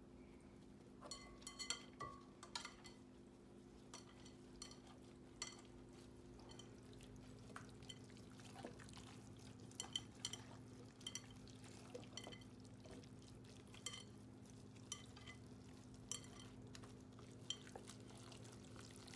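Cornbread dressing being mixed in a bowl: faint, scattered soft clicks and taps over a steady low hum.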